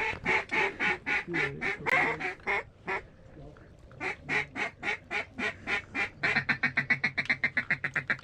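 Duck call blown in a string of short quacks, about four a second, broken off briefly about three seconds in, then picking up into a fast chatter of about seven quacks a second near the end, calling to ducks working the decoys.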